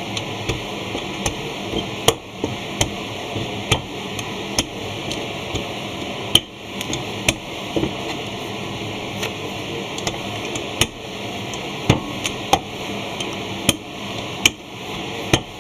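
Irregular sharp knocks, roughly one a second, of a cutter stamping smultringer doughnut rings out of rolled dough on a kitchen board, over a steady background hiss.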